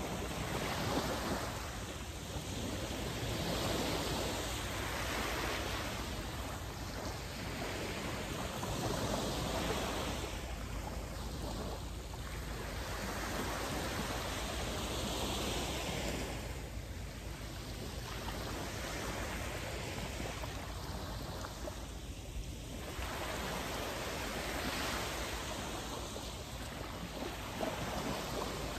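Small waves washing up onto a sandy beach: a steady rush of surf that swells and eases every few seconds.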